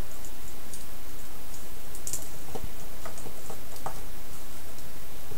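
A few faint, scattered clicks and taps of a plastic Transformers action figure being handled on a wooden desk, over a steady hiss.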